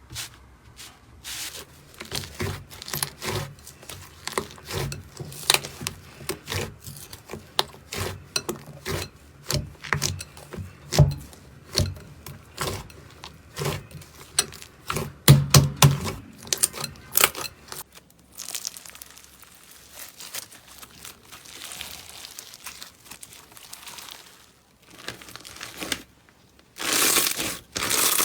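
Slime being squeezed and pressed by hand, giving a rapid run of sharp crackles and pops for most of the time, then a softer steady rustling, and a louder rush of crinkling noise near the end.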